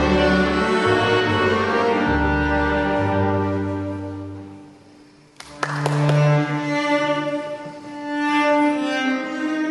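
Slow elegy for solo cello with a small ensemble of violins, double bass, clarinet, piano and accordion. The music dies away about five seconds in, then a sharp struck chord and a strong low held note open the next phrase.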